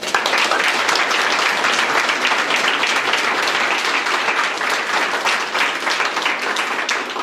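Audience applauding in a room: many people clapping together, starting abruptly and holding steady.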